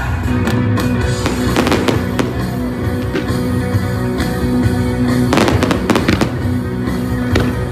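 Fireworks bursting and crackling over loud music, with two clusters of bangs, about a second and a half in and again past the halfway point, and a few more near the end.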